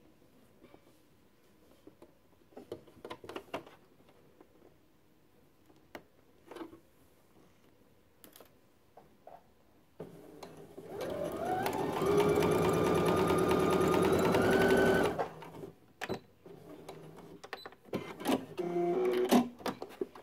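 Computerized sewing machine stitching at high speed: the motor winds up in pitch over a couple of seconds, runs fast and loud for about three seconds, then stops. Light clicks and fabric handling come before and after the run.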